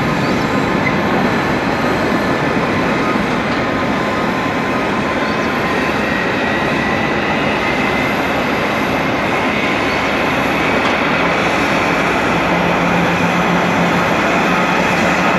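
Jet noise of an Airbus A340-600's four Rolls-Royce Trent 500 turbofans at takeoff thrust as the airliner climbs away: a loud, steady noise with a faint whine rising slowly in pitch.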